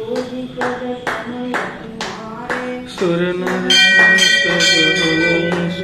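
Devotional music with a melody over a steady beat of about two strikes a second. Starting a little past halfway, a brass temple bell rings over it, struck repeatedly, its tones hanging on between strikes.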